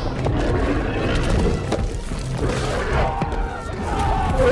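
Music with heavy low thuds and crashes running through it.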